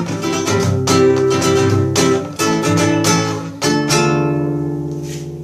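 Instrumental ending of a forró song: a run of strummed chords, then a last chord about four seconds in that rings on and fades away.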